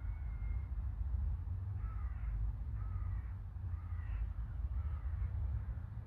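A crow cawing about five times in a row, starting about two seconds in, over a steady low rumble.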